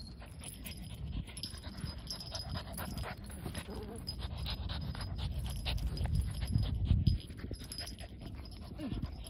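Two French bulldogs play-wrestling: their breathing and snuffling close to the microphone, with scuffling and rustling as they roll on the turf, loudest about two-thirds of the way through.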